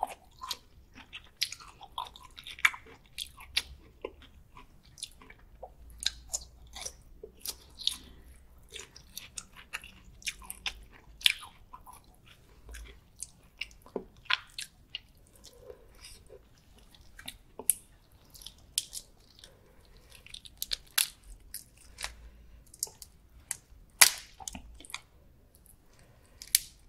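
Close-miked chewing and biting of butter-garlic prawns, a steady run of short, sharp wet clicks and crackles in the mouth, the loudest about three-quarters of the way through.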